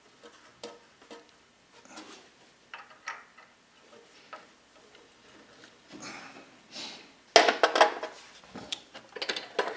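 Metal lathe change gears and gear-arm fittings being handled: light clicks and clinks, then a loud metallic rattling clatter about seven seconds in and another shorter one near the end.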